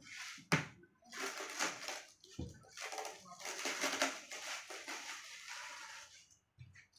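Plastic film and bubble wrap crinkling and rustling in irregular bursts as hands unwrap a headlight lens. There is a sharp snap about half a second in and another about two and a half seconds in.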